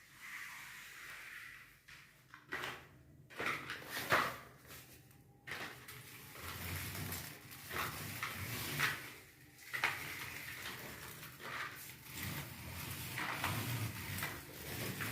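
Scattered knocks, clicks, scrapes and clatters of things being handled and moved in a small room, like doors or drawers being worked. The sharpest knocks bunch up between about two and six seconds in.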